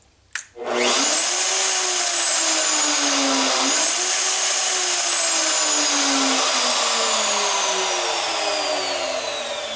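Milwaukee 5625 router switched on at a newly wired toggle switch: a click, then the motor spins up to a high whine. The whine sags, rises again about three and a half seconds in, then falls steadily in pitch as the router winds down after being switched off.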